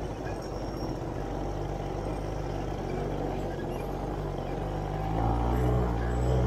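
Buggy engine running steadily while driving over sand, growing louder about five seconds in.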